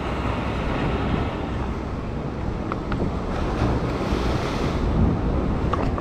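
Surf washing and breaking against a sandstone rock shelf, with wind buffeting the microphone in a steady low rumble.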